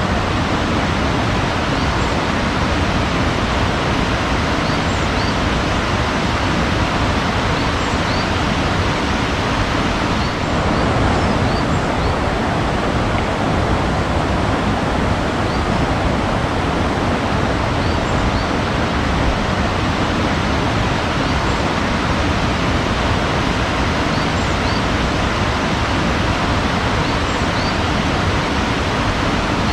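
Steady rushing of water, a constant even noise like a waterfall or stream, with faint short high chirps scattered through it.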